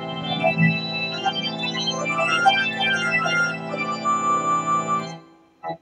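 Casio electronic keyboard set to a full organ voice, playing sustained chords with a melody moving above them. The organ ends about five seconds in, followed by a single short knock.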